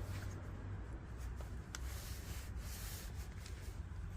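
Faint rubbing and small scattered clicks of parts of an LEVC taxi door handle being handled and pushed into place, over a steady low hum.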